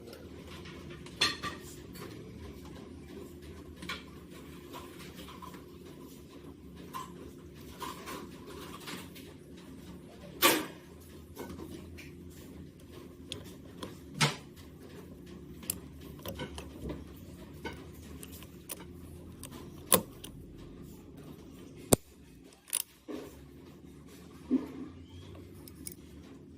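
Small metal parts and tools being handled, with scattered clinks and a few sharper knocks over a steady low hum.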